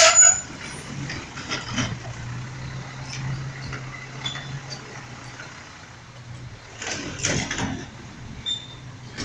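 Heil Durapack Rapid Rail side-loader garbage truck's engine running with a steady low drone as the truck moves off down the street. About seven seconds in there are a few brief, louder noisy sounds.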